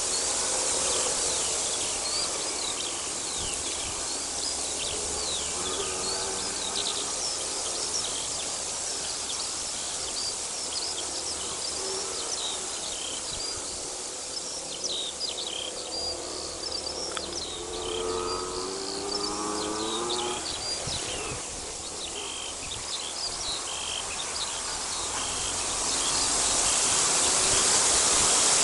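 Many small songbirds chirping and singing over a steady hiss. A lower, rapidly pulsing sound comes in about eighteen seconds in, and the hiss grows louder near the end.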